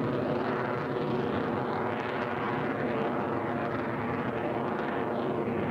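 Jet noise from an F-22 Raptor's twin turbofan engines as it manoeuvres overhead: a steady loud rush whose hiss sweeps up and down in pitch as the jet moves.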